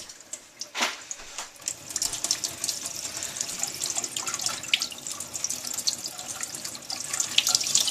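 Water pouring and splashing down a small homemade water-wheel chute, driving a toy sawmill. A single knock comes just under a second in; the splashing starts about two seconds in and grows louder near the end.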